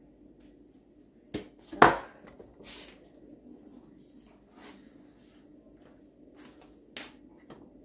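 A few sharp knocks and clicks from handling a gas stove and the glass pot on its hob, the loudest about two seconds in, with a faint steady hum underneath.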